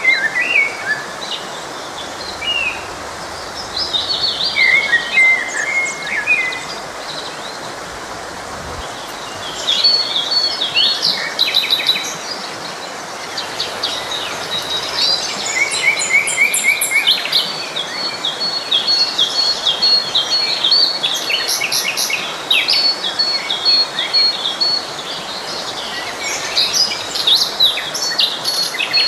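Several songbirds singing and calling over the steady rush of a forest stream: varied chirps and trills, joined in the second half by a fast run of repeated high notes that keeps coming back.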